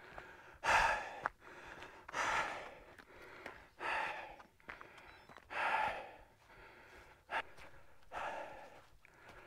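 A man breathing heavily while walking uphill, about five loud breaths spaced a second and a half to two and a half seconds apart, out of breath from the climb.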